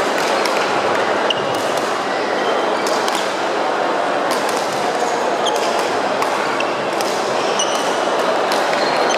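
Badminton play in a large, echoing sports hall: sharp racket-on-shuttlecock hits and short shoe squeaks on the court floor scattered through a steady din of voices and play from other courts.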